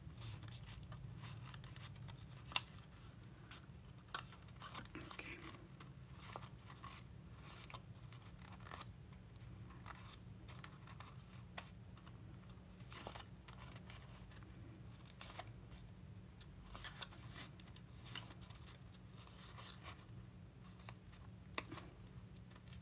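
Faint rustling and small irregular clicks of cardstock paper being folded and creased by hand, with one sharper click about two and a half seconds in.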